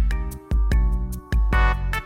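Electronic music: heavy bass notes pulsing about twice a second under sharp percussion hits and held synth tones.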